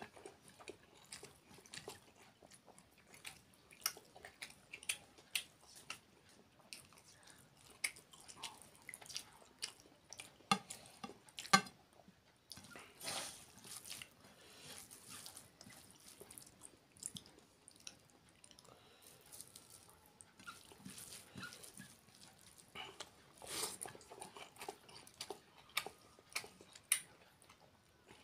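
A man eating rice and curry with his fingers: wet mouth smacking and chewing, with many irregular soft clicks and squelches as his hand mixes rice on the plate.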